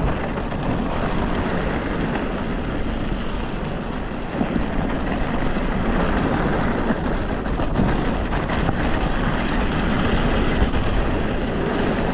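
Steady rolling noise of an electric mountain bike being ridden over a rough track, with scattered faint knocks and rattles.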